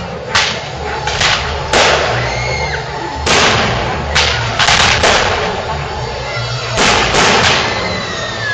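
Aerial fireworks shells bursting overhead: about ten loud bangs, unevenly spaced, some coming in quick pairs and triples.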